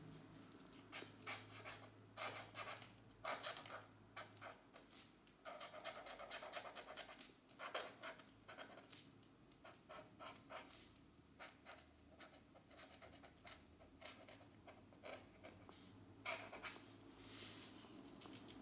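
Felt-tip markers scratching across paper in quick short back-and-forth strokes, coming in irregular clusters with brief pauses; soft overall, with a few louder strokes.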